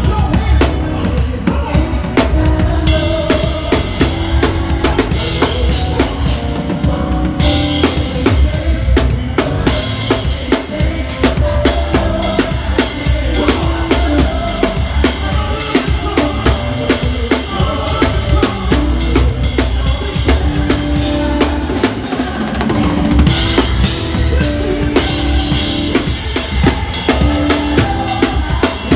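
A drum kit played continuously up close: kick drum, snare and cymbals driving a steady beat over the rest of a live band's music.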